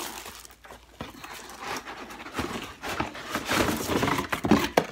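Plastic wrapping crinkling and a cardboard box rustling as a wrapped toaster is pulled out of its carton, in irregular rustles with small bumps.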